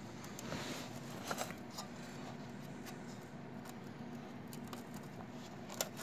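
Faint scratching and small clicks of fingers working a kerosene heater's cotton wick onto the metal pins of its wick holder, with a sharper click near the end.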